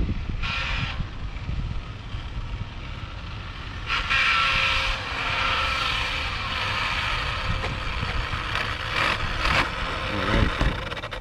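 Electric whine of a dual-motor RC speed-run car's brushless motors as it drives along the road. The whine comes in loudly about four seconds in, holds steady pitches and fades out near the end.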